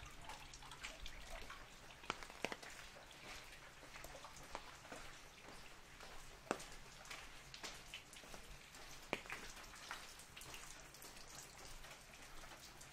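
Rain falling on an umbrella held overhead: a steady light patter, with four louder single drops striking the canopy.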